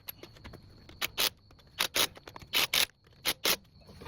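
Air impact wrench fired in short bursts, four pairs of quick blips, running the lug nuts on as the front wheel goes back on.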